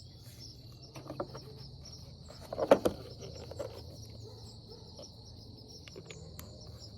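Steady high chirring of crickets, with a few light clicks and taps; the loudest come about three seconds in.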